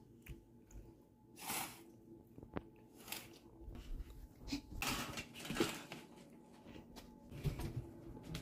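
Soft rustling and shuffling handling noises, coming in several short bursts, with one light sharp knock: a child moving about on carpet and the handheld camera being moved.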